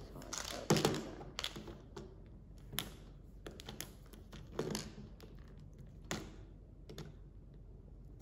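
Irregular clicks and taps of fingernails picking at a hard plastic Mini Brands capsule ball, with a few duller knocks of the ball against the tabletop.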